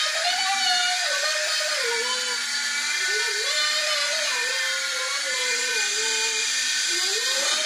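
Small remote-control electric toy helicopter in flight: its electric motor and rotors give a steady high whine whose pitch wavers up and down.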